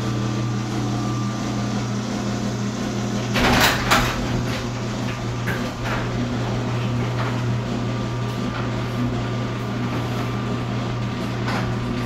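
ProMax garage door opener's motor running with a steady hum as it drives the door closed, starting normally on its newly replaced start capacitor. A brief louder clatter comes about three and a half seconds in.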